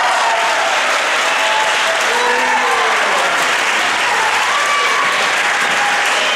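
Audience applauding at the end of a flamenco number, steady and dense, with a few voices calling out over the clapping.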